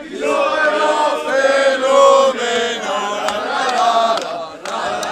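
A group of men singing a chant together, loud, with long held notes.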